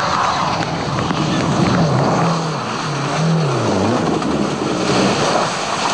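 Lancia Delta rally car's turbocharged four-cylinder engine running hard as it passes, its revs climbing and dropping several times in quick succession.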